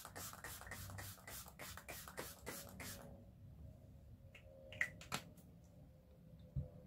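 Thermal-water spray bottle spritzed over and over onto the face, about four quick hissing spritzes a second, stopping about three seconds in. A few faint clicks and a soft knock follow.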